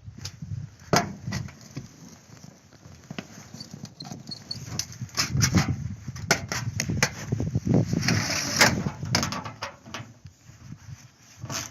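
Irregular knocks, clicks and rustles with no engine running, louder and more frequent in the second half.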